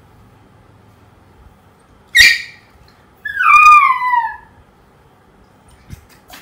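Poodle puppy left alone crying: a short sharp yelp about two seconds in, then a longer whine that slides down in pitch. It is the distress of a puppy left by itself.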